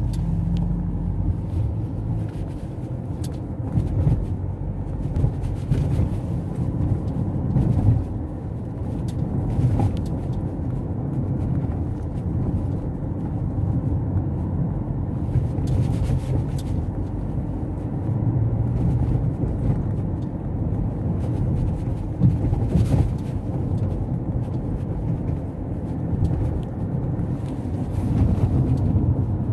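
Car driving, heard from inside the cabin: a steady low rumble of engine and road noise, with a few faint knocks.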